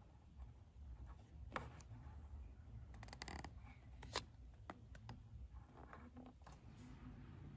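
Thin printed cereal-box paperboard crinkling and clicking as fingers fold and pinch a tiny box into shape: a few scattered faint crackles, the sharpest about four seconds in, over a low hum.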